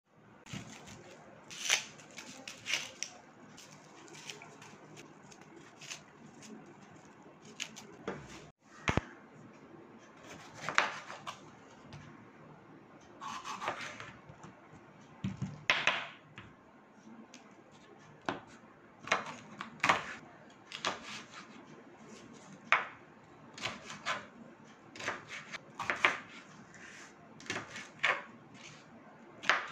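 Kitchen knife cutting a green bell pepper on a wooden cutting board: irregular sharp knocks of the blade hitting the board, about one every second or two, with a brief break about eight seconds in.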